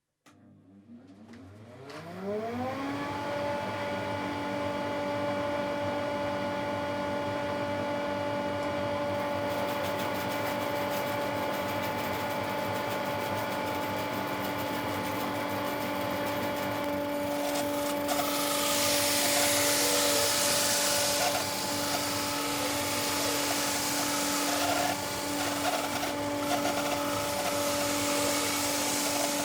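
Bandsaw switched on: the motor spins up with a rising whine over about two seconds, then runs at a steady hum. About eighteen seconds in, a louder rasping hiss joins it as the blade cuts into the wood.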